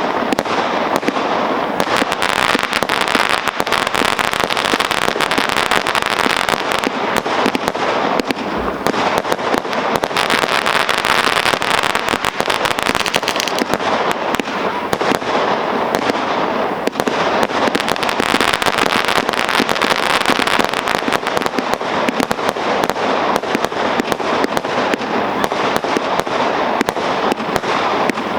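GBV-Weco G-Force 6000 firework compound, 12 batteries with 432 shots in all, firing shot after shot in rapid, unbroken succession.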